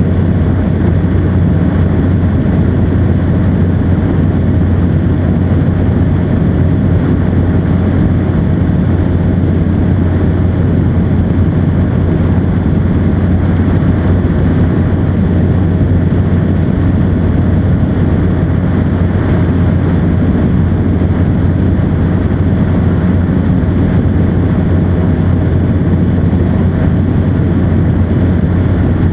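North Wing ATF ultralight trike's engine and pusher propeller running steadily in flight: a constant low drone with a thin steady higher tone over it, mixed with wind rushing over the microphone.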